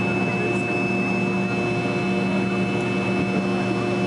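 Airliner's rear-mounted jet engine at takeoff climb power, heard from inside the cabin right beside it: steady engine noise with a low hum and a high whine.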